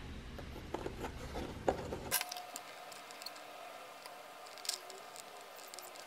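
Faint clicks of fingers handling a small printed circuit board while pressing an NE555 chip into its holes, over low room noise.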